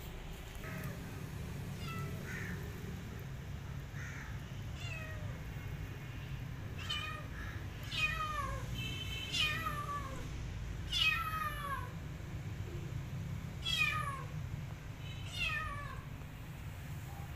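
Cat meowing repeatedly, about a dozen short meows that each fall in pitch. They are faint at first and louder and more frequent from about seven seconds in, over a steady low hum.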